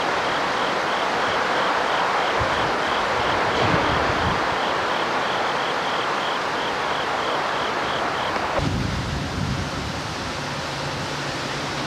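Steady rushing of wind in the trees and on the camcorder microphone. A faint high chirp repeats about three times a second through most of it, and a low hum joins near the end.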